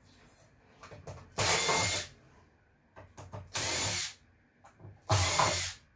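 Cordless drill-driver spinning in three short bursts of about half a second each, backing out the screws that hold a circuit board, with light clicks between the bursts.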